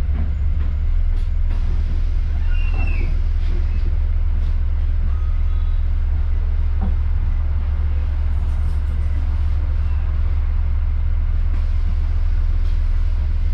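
Bus under way, heard from on board: a steady low rumble of engine and road noise, with a brief high squeak about two and a half seconds in.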